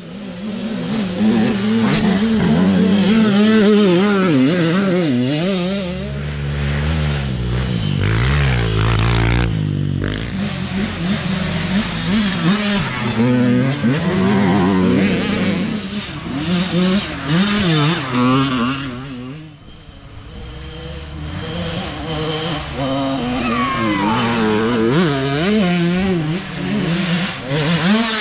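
Several youth dirt bikes passing one after another, their engines revving up and down as the riders work the throttle. The sound dips briefly about two-thirds of the way through before the next bike comes.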